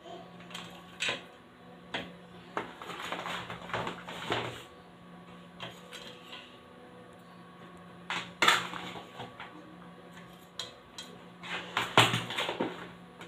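Plates and cutlery clinking and knocking irregularly as food is served and cut, with the sharpest clatters a little past the middle and near the end.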